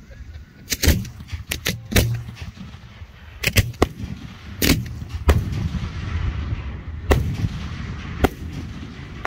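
Aerial fireworks shells bursting overhead: about a dozen sharp bangs in quick succession, thickest in the first five seconds, with a low rumble between them.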